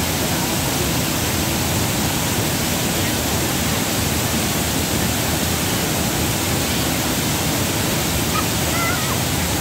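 Waterfall rushing steadily, an even hiss of falling water. A faint voice is heard briefly near the end.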